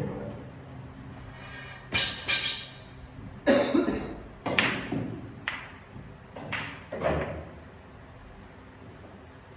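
Billiard balls clacking: a run of about eight sharp knocks of balls striking one another and the table, spaced from a fraction of a second to a second apart, dying away after about seven seconds.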